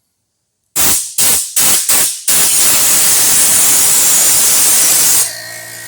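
Compressed air blowing dust out of a dirty computer case: four short hissing blasts, then one long continuous blast of about three seconds. Near the end the air pauses briefly, leaving a fainter whirring hum, before another blast starts.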